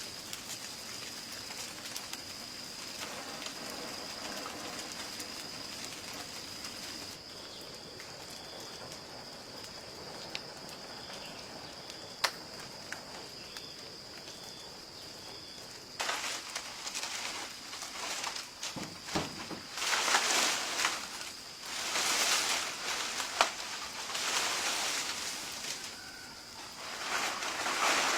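A steady high-pitched whine over quiet outdoor ambience, with faint chirps. About halfway through, repeated loud bursts of rough noise set in, like handling or scraping material, and grow louder near the end.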